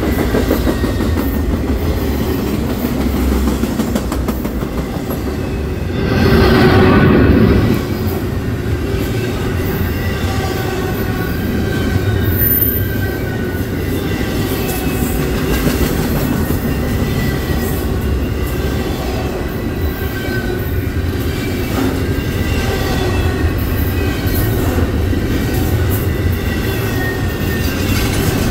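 Union Pacific freight train cars rolling past in a steady rumble, with faint wheel squeal. About six seconds in a louder rush lasts around two seconds.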